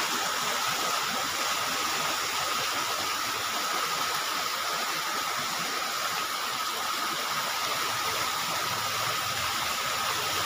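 Heavy rain and fast-flowing muddy floodwater rushing through a garden, making a steady, even rushing noise.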